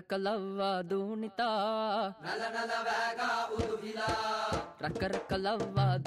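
Music: a single voice chanting a wavering, ornamented melody over hand-drum strokes.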